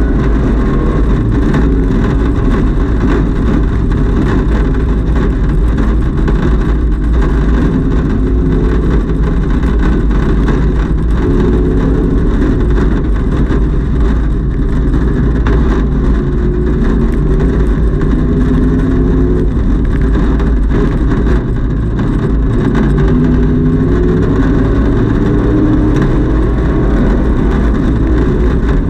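Camaro race car's engine running hard at speed, heard from inside the stripped, roll-caged cockpit, loud and continuous over steady road and wind noise. The engine note rises and falls a little as the car goes through the lap.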